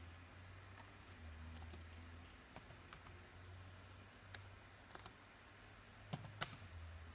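Computer keyboard keystrokes: about ten separate, irregularly spaced clicks as a user name and password are typed, over a faint low hum.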